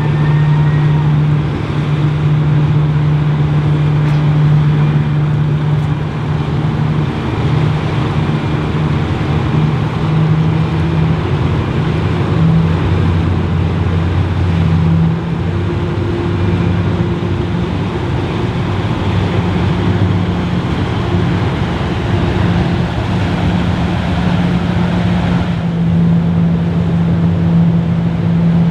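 Car ferry's engines and thrusters running as it manoeuvres onto the berth: a steady loud drone whose pitch and strength shift a few times as power changes, over the rush of churned water.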